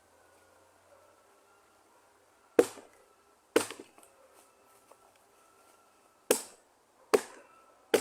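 Wood being chopped with a cutting tool: sharp single blows, two about a second apart, then a pause, then three more in quick succession.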